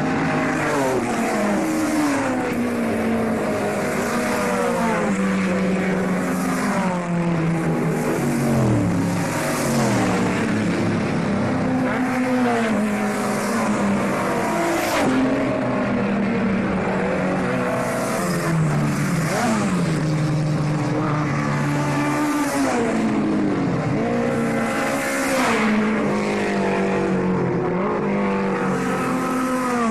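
Historic saloon racing cars running at speed past the trackside, one after another. Their engines rev up and drop in pitch over and over as each car goes by and changes gear, with several engines often heard at once.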